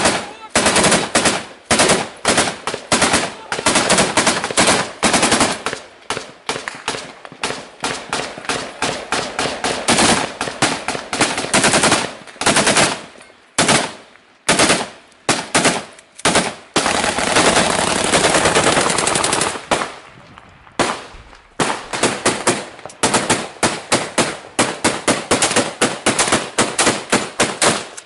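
AK-pattern assault rifles firing at close range: rapid single shots and short bursts with hardly a pause, and one unbroken automatic burst lasting about three seconds past the middle.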